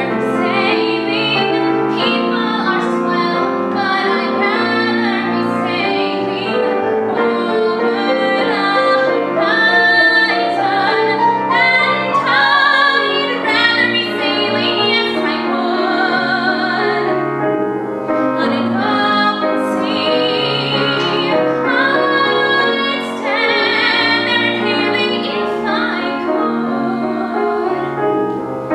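A woman singing a musical-theatre song in a trained voice, accompanied by a grand piano, with vibrato on her held notes.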